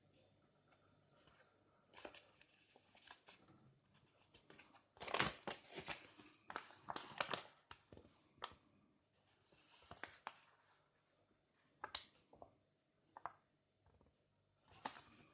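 Packaging of a shower head being handled and opened: bursts of crinkling and tearing with sharp clicks, the busiest and loudest stretch a few seconds in, then scattered single clicks.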